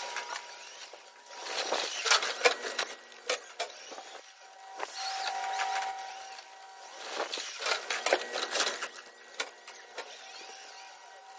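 Forklift driving and manoeuvring, with a fast, high-pitched pulsing tone that starts and stops several times as it moves, a lower steady tone in the middle, and light clicks and rattles.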